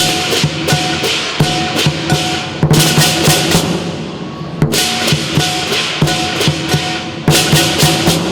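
Southern lion dance percussion: a large lion drum beating with clashing cymbals and a gong, the cymbals coming in loud bursts of rapid crashes every couple of seconds.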